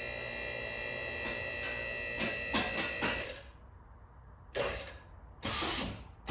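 QuickJack portable car lift's electric hydraulic pump running with a steady whine while raising the car, with a few clicks near the end before it stops about three seconds in. Two short rushing noises follow.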